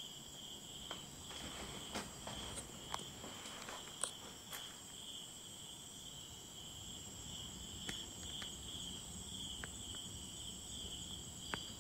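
Crickets chirping in a steady, evenly pulsing high trill, with a few faint, scattered clicks and knocks.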